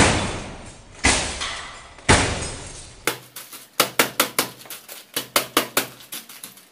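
Work boots stamping and stepping on a bed of metal shavings: three heavy stamps about a second apart, each trailing off over about a second, then a quick run of sharp metallic clicks and crunches as the feet shift over the loose metal chips.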